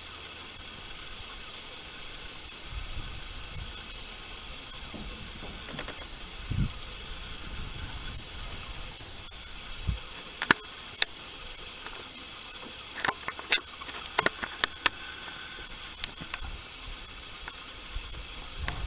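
A ridden horse walking in a sand arena: soft, irregular low thuds of hooves in the sand, and a handful of sharp metallic clicks from the tack about halfway through, over a steady high-pitched hiss.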